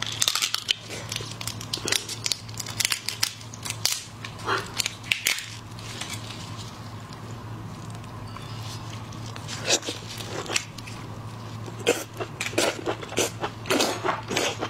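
Crisp crackling and snapping of cooked prawn shells being bitten and peeled apart by gloved hands close to the microphone, thick with clicks at first, easing off midway, then crackling again near the end. A steady low hum runs underneath.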